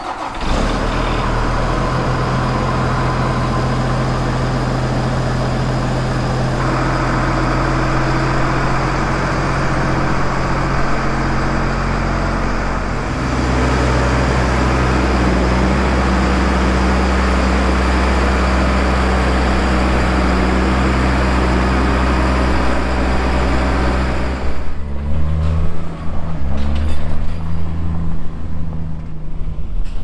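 Case IH MX240 tractor's diesel engine running steadily, deepening and getting louder about halfway through. Near the end the sound changes to a road vehicle driving, with an uneven level.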